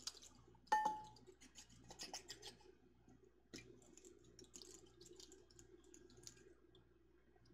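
A glass canning jar and its lid being handled: one sharp clink with a short ring about a second in, then faint scattered clicks and scratches.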